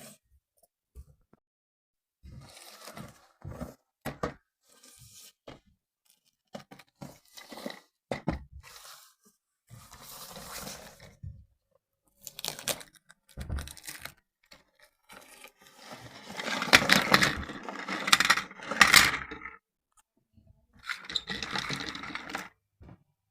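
Toy packaging being handled and opened by hand: irregular bursts of scraping, tearing and crinkling with short pauses between, loudest for a few seconds past the middle.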